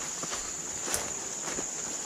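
Steady high-pitched drone of insects, with footsteps crunching and rustling through leaf litter and undergrowth, and one sharper click about a second in.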